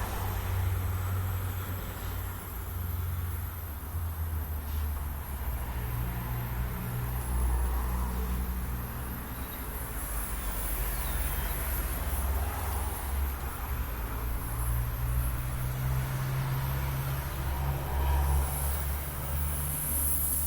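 Heat gun running steadily, its fan and motor giving a low hum with a faint airy hiss, as it shrinks heat-shrink tubing over a wiring join; it is switched on just before and off just after.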